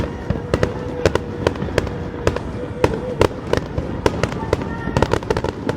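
Fireworks going off in quick, irregular succession: many sharp bangs and crackles a second over a continuous rumble, with a steady held tone under them for the first three seconds or so.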